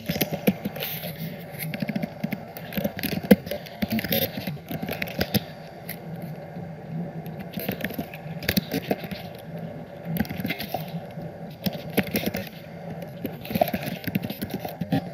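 Typing on a computer keyboard: an irregular run of keystroke clicks.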